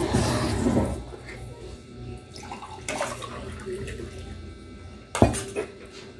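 Water poured from a plastic pitcher into a ceramic mug, with a sharp knock about five seconds in.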